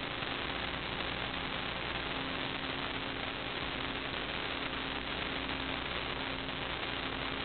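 Steady hiss with a faint electrical hum that comes and goes: the background noise of a sewer inspection camera system's recording, with no distinct event.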